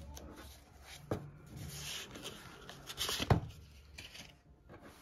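Kraft paper wrapping rustling and crinkling as a small packet is unwrapped by hand, with two sharp taps, one about a second in and a louder one a little past three seconds.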